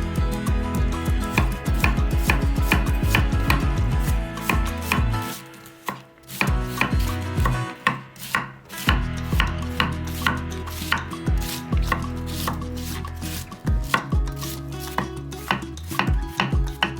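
Knife chopping food on a cutting board: fast, even strokes for the first few seconds, a brief pause about six seconds in, then slower, uneven cuts.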